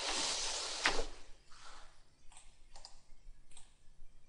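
Computer mouse clicking: a few short, separate clicks spaced about half a second to a second apart. Near the start there is a brief breathy rush of noise, the loudest sound, with a sharper click inside it.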